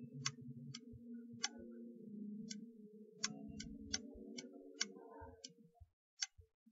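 Computer mouse clicking about a dozen times at irregular intervals, a few quick clicks in a row, over a faint low hum that stops near the end.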